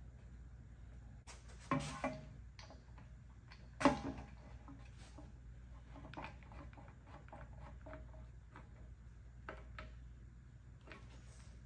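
Ratcheting work clamps clicking as they are cranked down to pull an aluminum gas-tank tunnel into shape. Two louder knocks that ring briefly come about two and four seconds in.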